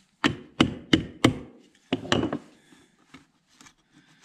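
Sharp knocks and clicks from handling the gear oil bottle and tools on a plywood board: four quick knocks about a third of a second apart, two more about two seconds in, then only faint small clicks.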